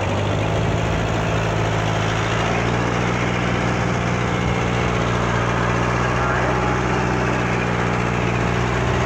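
A fishing boat's engine idling with a steady hum, over the rush of rough waves breaking around the hull.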